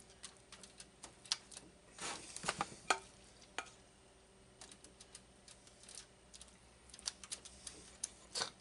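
Faint crinkles of aluminum foil and soft wet dabs of a basting brush as sauce is brushed onto racks of ribs: a scatter of small clicks and rustles, busiest a couple of seconds in and again near the end.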